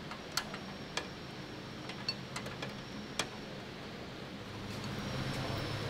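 A handful of irregular light metallic clicks as a spanner is worked on a small brass fitting on a rusty steel dashboard, over a steady low hum.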